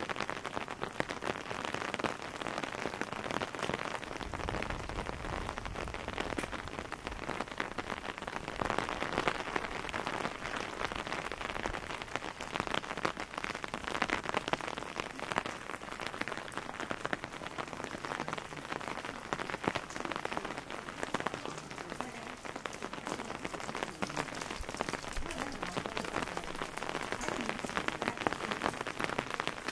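Steady rain falling on wet cobblestone streets: an even hiss made of many fine drop ticks.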